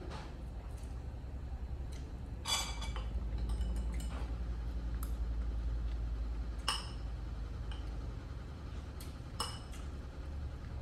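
A spoon clinking against a dish while food is scooped, several short ringing clinks a few seconds apart, over a low steady hum.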